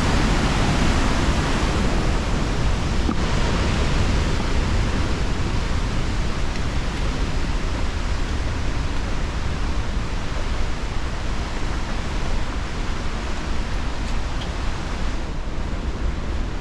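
Steady rushing roar of the Pailón del Diablo waterfall, a loud even noise of falling water with no breaks; the hiss thins a little near the end.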